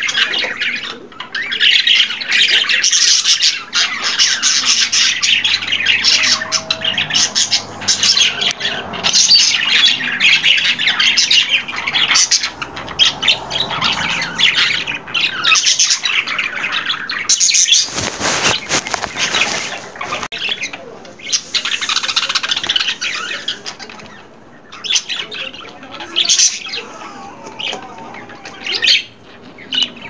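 Budgerigar chattering and warbling: a dense, continuous stream of chirps, squawks and trills. A brief rushing noise comes about 18 seconds in, and the calls thin out toward the end.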